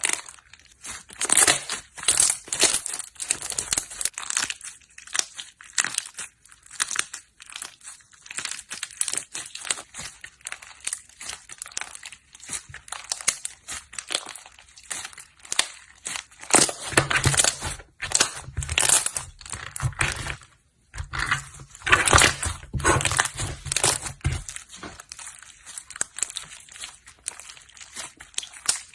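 Slime being squished, poked and stretched by hand, giving quick irregular bursts of crackling, popping and crinkling. A deeper low rumble runs under the handling for several seconds past the middle.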